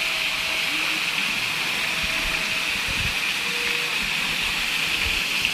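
Steady rush of water from an artificial rock waterfall pouring into a swimming pool.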